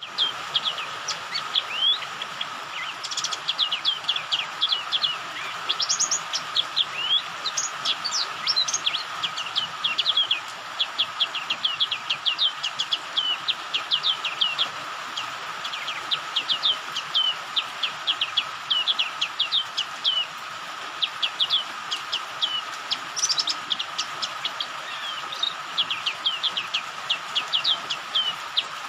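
Javan white-eye (pleci) calling: long runs of short, sharp, high chirps that sweep downward, several a second, with brief pauses between runs. A steady hiss of rain lies under it.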